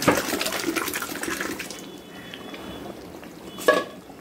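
Cooked lentils and tamarind water poured into a large steel pot of simmering thalcha, splashing and gurgling for about two seconds. A single sharp metallic clank comes near the end.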